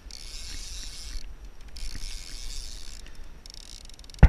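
Water washing against the hull of a fishing kayak moving through ocean chop, heard as rushes of hiss that come and go every second or so. A sudden loud noise breaks in right at the end.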